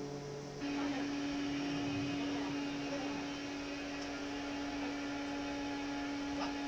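Steady machine hum from spray-booth equipment, with one strong low tone and a hiss over it that grows fuller about half a second in.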